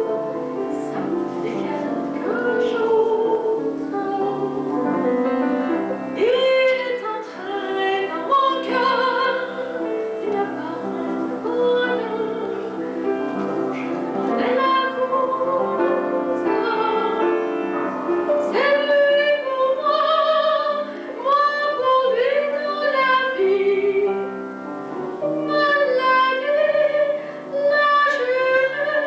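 A woman singing in an operatic style, holding notes with vibrato, accompanied by a piano.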